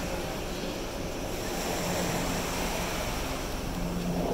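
Small surf breaking and washing up on a sandy beach, with wind buffeting the microphone; a low hum comes and goes underneath.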